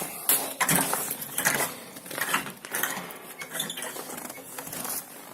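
A series of irregular clinks and knocks of hard objects being handled, about half a dozen over the few seconds.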